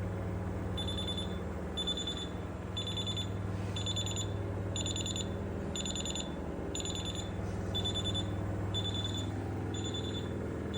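Miele washing machine beeping its warning signal, a high-pitched beep about once a second, over a steady low hum. The machine is not draining.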